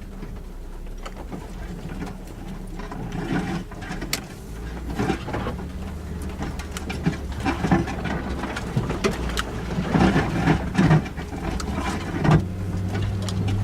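Suzuki Jimny engine running under load, its pitch stepping up a couple of times, with repeated knocks and clatters from the vehicle working over rough off-road ground.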